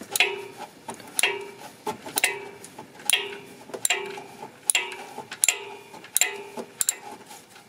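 Ratchet wrench with a 16 mm socket undoing an alternator mounting bolt, clicking once on each back-swing of the handle in a steady rhythm of about one swing a second.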